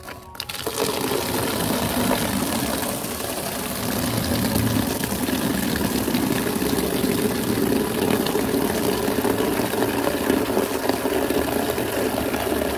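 A stream of water pouring from above into a plastic baby bathtub, splashing steadily as the tub fills; it starts about half a second in.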